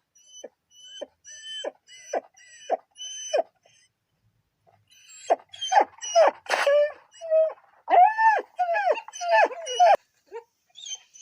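A dog whining and crying: short whimpers falling in pitch, about two a second, then a pause and a run of louder, longer whining cries from about five seconds in.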